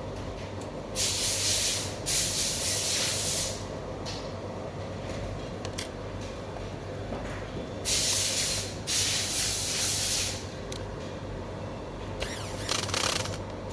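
Three separate bursts of hissing air, each lasting one to two and a half seconds, over a low steady hum.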